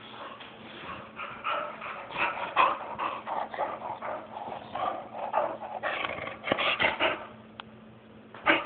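A dog vocalizing in a long run of short, irregular whining sounds, dying down near the end.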